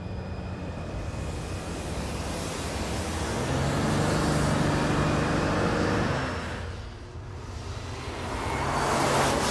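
Audi e-tron Spyder concept car driving up and past: a steady engine note grows to its loudest about four to six seconds in and fades away, then a second swell of road noise near the end.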